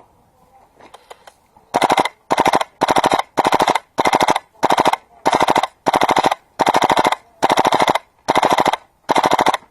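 Airsoft gun firing on full auto in short, regular bursts of rapid clicks, just under two bursts a second, starting about two seconds in.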